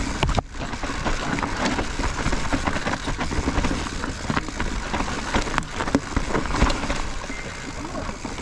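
Mountain bike rolling fast down a dirt forest trail: tyre noise over leaf-covered dirt and roots, with a constant stream of rattles, clacks and knocks from the bike.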